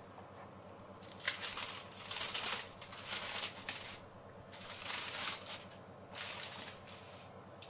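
Aluminium foil crinkling in four short bursts as a hand peels it back off a baking tin.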